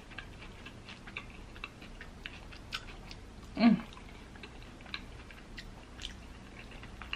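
Close-miked chewing and mouth sounds of someone eating a burrito bowl, with small scattered clicks of a fork in the bowl. A brief hum of the voice comes about three and a half seconds in.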